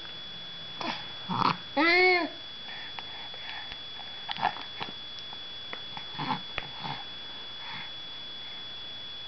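A baby's short pitched vocal sound, rising then falling, about two seconds in, amid scattered breathy sniffs and wet mouth noises while he gums a piece of bread.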